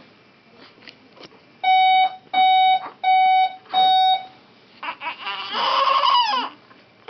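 Premature infant's home medical monitor alarm beeping four times, evenly spaced, each a steady high tone about half a second long. About a second later a baby lets out a short cry that slides up and down in pitch.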